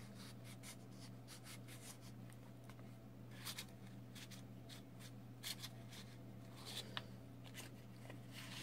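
A thin plastic card scraping along the glued edge of a Samsung Galaxy J6's front screen, working through the adhesive that holds the display to the housing: a few short, faint scrapes. A steady low electrical hum runs under it.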